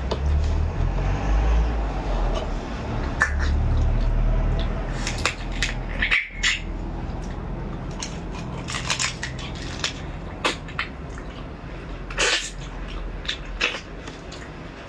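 Crab shell and legs cracking and snapping as the crab is pulled apart by hand and bitten, close to the microphone: a run of sharp irregular cracks and clicks, with low thumps of handling in the first few seconds.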